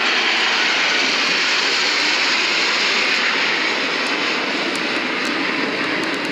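Jet noise from a USAF Thunderbirds F-16 passing overhead: a loud, even rushing sound that is strongest early and eases off slowly toward the end.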